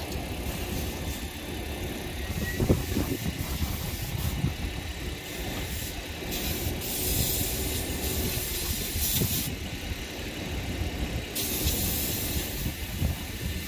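Hissing spray at a hand car wash, switching on about six seconds in for three seconds and again near the end, over a steady low rumble of street traffic.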